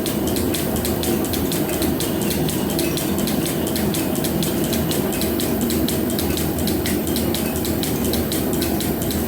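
Metal planer running through a roughing pass on a steel bar: a steady mechanical running noise with a rapid, regular ticking.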